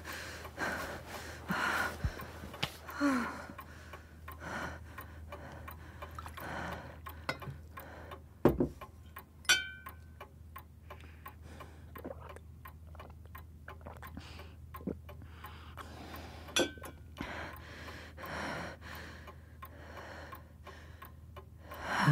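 A clock ticking steadily, with a person breathing and sighing in the first few seconds. A dull thump comes about eight seconds in, followed a second later by a brief ringing note.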